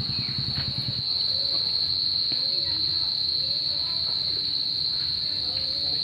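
Insects keep up a steady, high-pitched drone throughout. A motorcycle engine runs low underneath and fades out about a second in.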